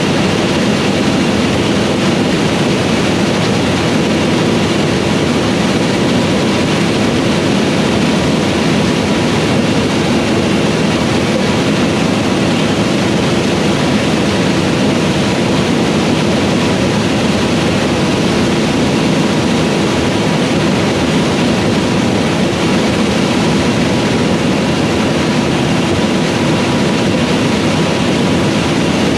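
Fendt Ideal 8 combine with a 12-row corn head running steadily while harvesting corn: a loud, even machine drone with a few steady whining tones held throughout.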